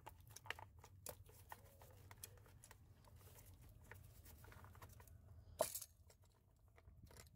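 Faint scraping and light clicking as an ignition coil is wiggled loose and slid out of the engine's spark plug well, with one sharper click about five and a half seconds in.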